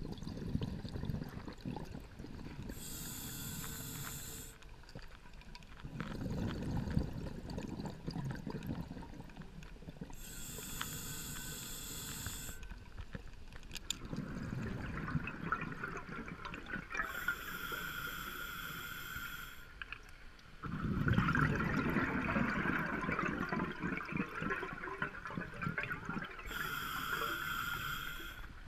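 Scuba regulator breathing heard underwater: a hissing rush of inhaled air four times, about every seven to eight seconds, alternating with the low bubbling gurgle of exhaled air. The bubbling is loudest in the last third.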